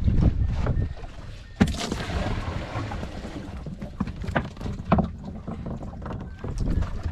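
Wind buffeting the microphone on an open boat, a steady low rumble, with one sharp knock about one and a half seconds in and a few lighter knocks and clicks a few seconds later.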